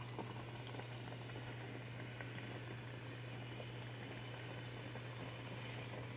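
Faint bubbling and popping of a pot of cassava leaf stew simmering, over a steady low hum.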